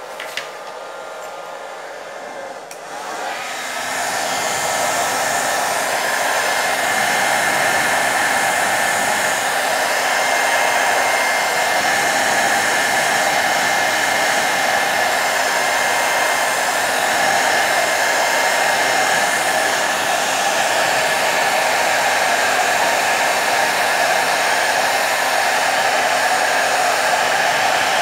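Hot-air blower running, aimed at a phone's screen to heat and soften the adhesive holding the display. The blower grows louder over the first few seconds, then holds a steady rush of air.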